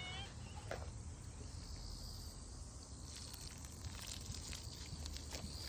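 Quiet outdoor ambience: a steady low rumble with faint insects chirring and a few soft ticks.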